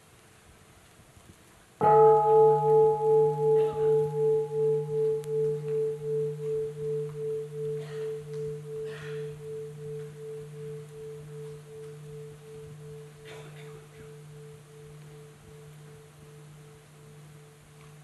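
A large bowl-shaped temple bell, the bell of mindfulness, struck once about two seconds in. Its deep hum rings on with a slow wavering pulse, about two beats a second, and fades gradually over some fifteen seconds. A fainter ring of the same tone is still dying away before the strike.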